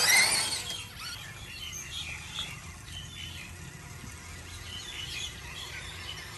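Birds chirping in short, scattered calls over a steady low background noise. A loud high gliding whine fills the first moment before fading out.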